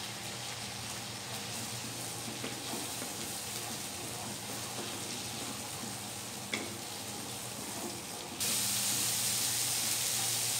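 Sliced tomato, chili, spring onion and onion sizzling in margarine and spice paste in a nonstick wok, stirred with a wooden spatula. The sizzle is a steady hiss that steps up louder about eight seconds in.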